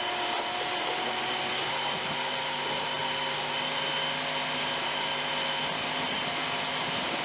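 Giraffe Tools Grandfalls electric pressure washer running, its jet spraying water to rinse foam off a car: a steady hiss of spray with a steady whine under it.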